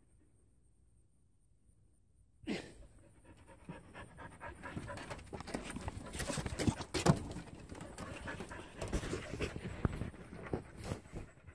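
Near silence for about the first two and a half seconds, then a Carolina dog panting quickly and steadily close to the microphone.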